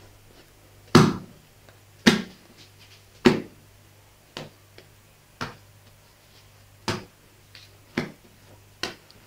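Soft brioche dough being kneaded by hand on a stone worktop, thudding against the counter about eight times, roughly once a second; the first three thuds are the loudest. A faint low hum sits underneath.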